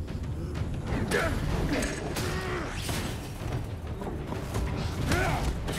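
Film fight sound effects: mechanical whirring and creaking from an armored fighting suit, with several hits about a second apart over a constant low rumble.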